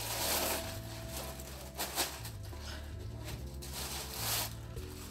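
Plastic wrapping crinkling and rustling as the UPS is lifted out of its foam packing, in several short bursts with a sharp crackle about two seconds in. Soft background music with a bass line plays underneath.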